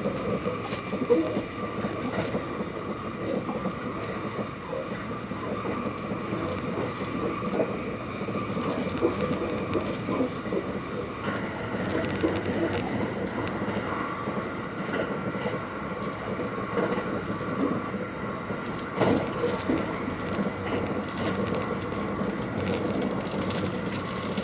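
Cabin noise of a Thunderbird limited-express electric train running at high speed. The wheels on the rails make a steady rumble under a constant hum, with frequent small clicks and knocks.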